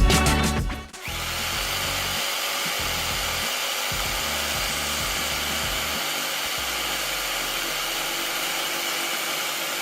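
A power tool running steadily for about nine seconds, starting about a second in and cutting off suddenly near the end.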